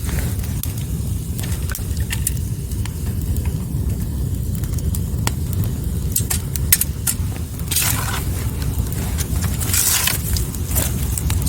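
Wood fire burning: a steady low rumble under scattered sharp crackles and pops, with two brief hissing spurts about eight and ten seconds in.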